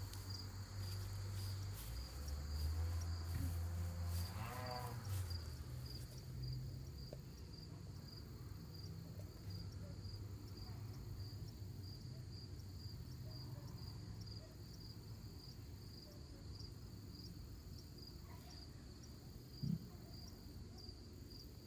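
Crickets chirping outdoors in a steady, even rhythm, with a low rumble over the first few seconds.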